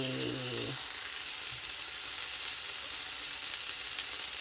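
Cod fillet, coated in flour, sizzling steadily as it fries in hot oil in a pan.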